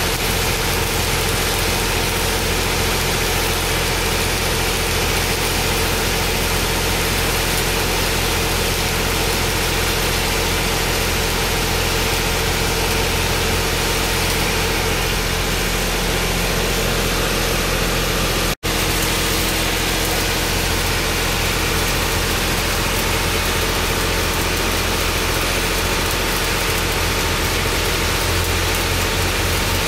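Stick-welding arc crackling and hissing steadily on a steel pipe joint, over a steady low machine hum. The sound drops out for an instant about two-thirds of the way through.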